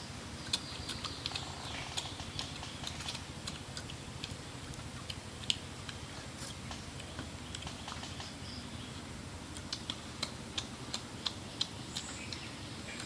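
People eating roasted chicken legs by hand: chewing and tearing meat off the bone, heard as irregular sharp clicks and smacks over a low steady background. The clicks come thicker near the end.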